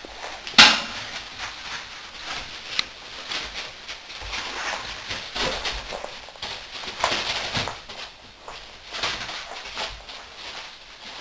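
American Staffordshire terrier puppies playing and moving about on a wooden floor: scattered scuffles and short noises, with a sharp knock about half a second in as the loudest sound.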